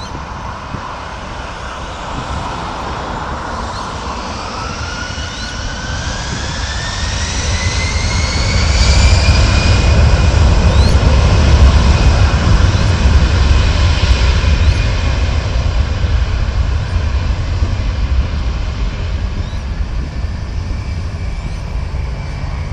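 Jet airliner passing close by, its engines rumbling with a whine that rises in pitch as it comes near. It swells to its loudest about halfway through, then slowly fades as it moves away.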